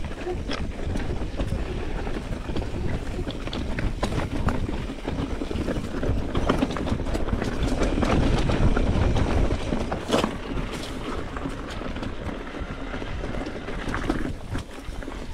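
Mountain bike riding over a rough, rocky trail: tyres rolling over rock and gravel, with a constant clatter of knocks and rattles from the bike and wind noise on the camera microphone. It is loudest about eight to nine seconds in.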